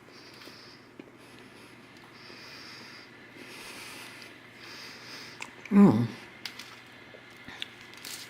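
A person eating a mouthful of naan pizza: repeated breaths through the nose while chewing, then one short loud vocal sound about six seconds in.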